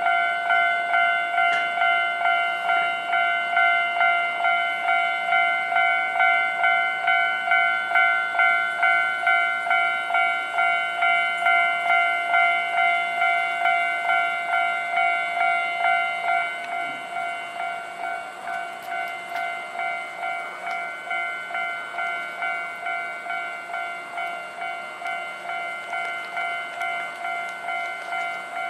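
Japanese railway level-crossing warning bell ringing, a repeating electronic ding of about one and a half strikes a second, signalling an approaching train. About two-thirds of the way through it drops in level and its lowest tone fades.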